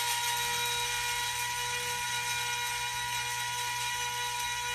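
Small electric motor running steadily with a high whine over a hiss.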